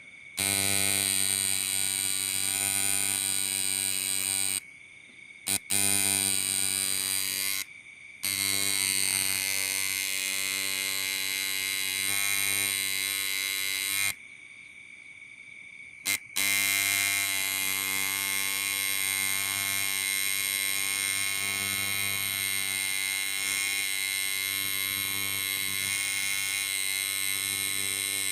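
Coil tattoo machine buzzing steadily, its electromagnetic coils driving the armature bar. It stops and restarts three times, the longest pause about two seconds midway.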